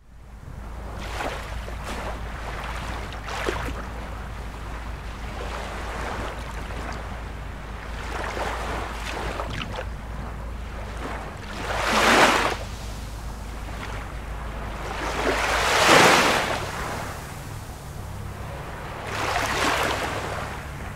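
Sea water rushing and washing steadily over a low hum, with three louder swells in the second half that each rise and fall over about a second.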